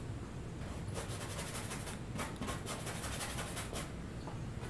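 Paintbrush bristles scratching against canvas in a run of quick short strokes as thick acrylic paint is dabbed on, densest from about one to four seconds in.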